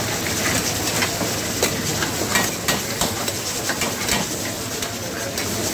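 A long metal ladle scraping and knocking against an iron karahi as raw chicken pieces are stirred in hot oil, with sharp clanks scattered over a steady sizzle.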